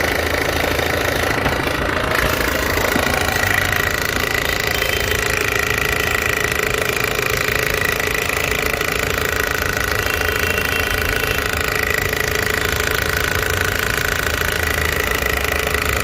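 Toyota 1ZZ 1.8-litre four-cylinder engine running at idle with a steady, fast rattle. The uploader puts the rattle down to a stuck timing-chain tensioner, which lets the timing chain slap against its guides.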